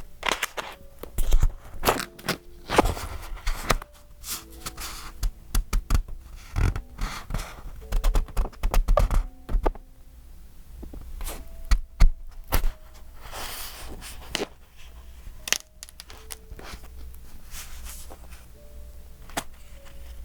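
Pages of a thick, decorated A5 paper journal being turned and handled: irregular paper rustling and scraping with soft thunks as pages flip over and land, busiest in the first half.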